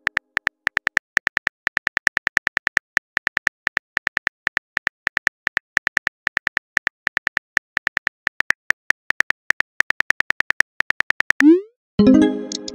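Simulated phone keyboard key clicks from a texting-story app, a rapid, even run of taps as a message is typed. Near the end comes a short rising swoosh as the message is sent, followed by a brief chime.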